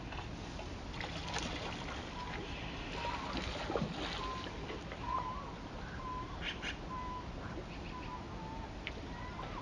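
Steady rush of Brooks Falls, the river pouring over the falls. Short bird calls, a few repeated notes close together, recur every second or so, with a few brief splashes.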